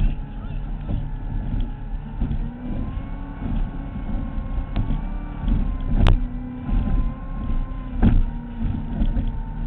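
Powerboat engine running steadily under way, with a few faint wavering tones over a heavy low rumble. Two sharp knocks come through, about six seconds in and again two seconds later.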